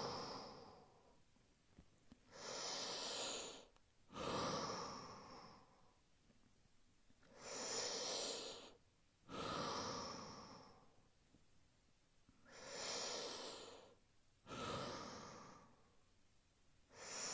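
A man taking slow, deep, deliberate breaths, one about every five seconds: each a long inhale followed straight away by a long exhale, with quiet pauses between breaths.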